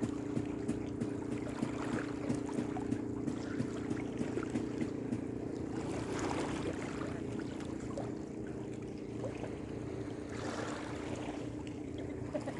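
Small boat engine running steadily at an even pitch, with water washing against the hull a couple of times.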